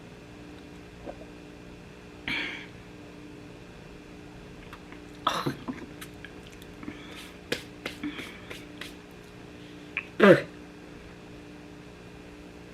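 A woman's short throat sounds and splutters, the loudest about ten seconds in, with light clicks between them.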